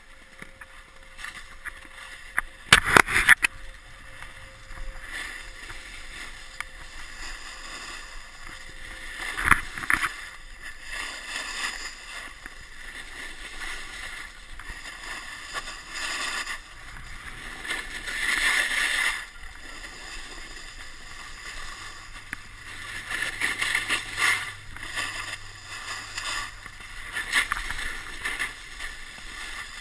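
Snowboard sliding and carving down a snow slope: a steady scraping hiss of the board on the snow that swells louder at times, with sharp knocks about three seconds in and again near ten seconds.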